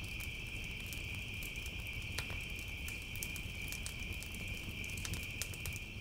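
Wood campfire crackling with scattered sharp pops, over a steady high chirring of night insects.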